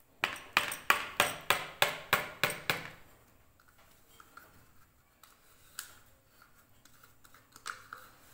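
A yogurt pot rapped about ten times in quick succession, roughly three knocks a second, against the rim of a plastic mixing bowl to shake its contents out. This is followed by a few faint clicks and handling sounds.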